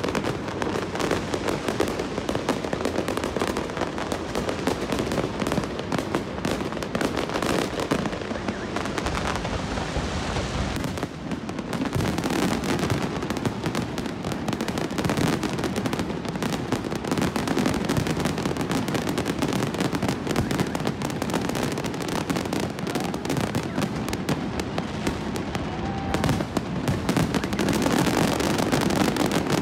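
Fireworks going off in a dense, near-continuous barrage of bangs and crackling.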